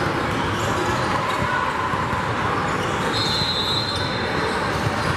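Steady, reverberant gymnasium din during a basketball game: crowd and players' chatter blurred by the hall's echo, with court noise. A brief high-pitched tone sounds about three seconds in.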